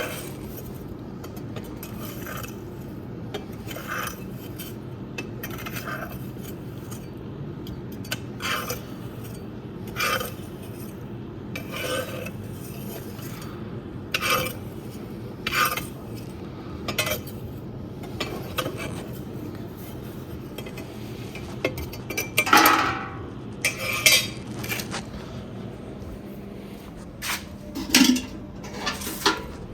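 Metal ash shovel scraping and clinking inside a fireplace as wood ash is cleared out. There is a short stroke every second or two, with a few louder scrapes about three-quarters of the way through and near the end, over a steady low hum.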